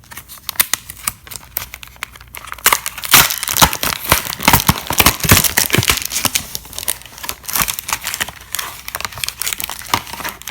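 Foil Pokémon booster pack being crinkled and torn open one-handed: irregular crackling and tearing of the foil wrapper, loudest and densest in the middle stretch.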